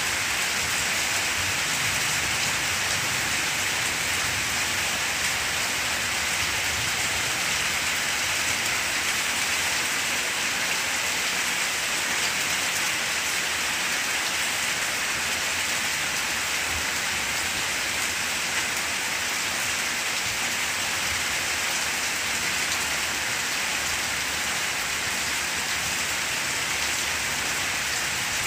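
Steady rain falling on banana plants, an even hiss with no break.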